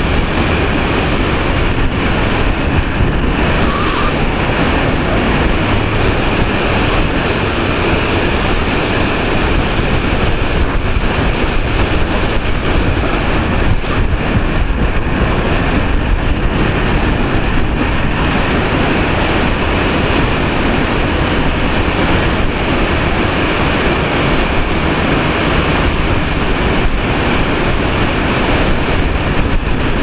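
Steady, loud wind rush and buffeting on the microphone of a camera riding on an Art-Tech Diamond 2500 radio-controlled glider in flight.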